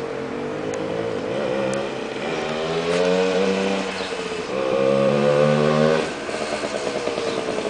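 1973 Suzuki TC125's two-stroke single-cylinder engine revving as the motorcycle rides toward the listener, growing louder. Its pitch climbs and falls a few times and drops sharply about six seconds in.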